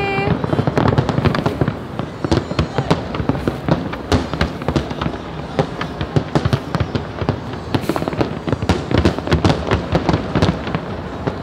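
Aerial fireworks display: a dense, irregular string of bangs and crackles from many shells bursting at once.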